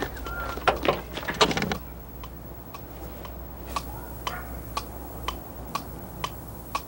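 Steady ticking, about two ticks a second, from a cartoon soundtrack. It follows a cluster of louder knocks and clicks in the first two seconds.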